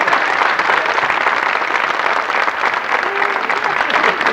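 Studio audience applauding, a steady dense clapping, with a voice briefly heard over it near the end.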